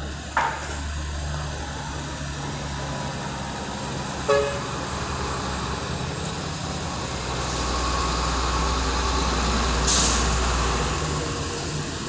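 Steady heavy-machinery rumble of a stone-crushing plant and its conveyors, with a short horn toot about four seconds in. A heavy dump truck's engine grows louder in the second half, and a short air-brake hiss comes about ten seconds in.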